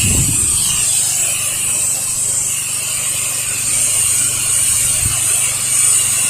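Steady hiss of water spraying from a pressure-washing wand during a rinse, over the steady low hum of the washer's engine-driven pump.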